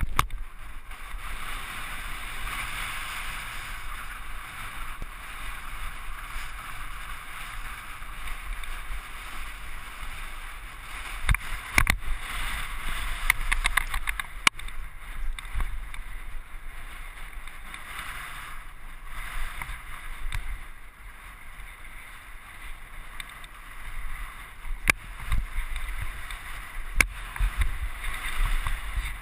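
Mountain bike rolling fast down a loose gravel trail, heard from the rider's camera: a steady crunching hiss of tyres on gravel with wind buffeting the microphone. Sharp knocks and rattles as the bike hits stones, in a cluster around the middle and as single hits near the end.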